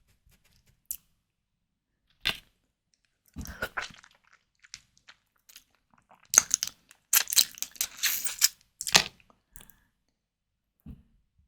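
Close-miked mouth sounds of white tiger prawns being bitten and chewed, in short separate bursts with silent gaps between them. They are busiest and loudest from about six to nine seconds in.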